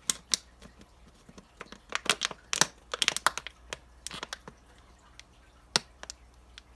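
Thin plastic water bottles crackling and clicking as they are handled, one held upside down on top of the other. The clicks come irregularly and are thickest about two to three seconds in.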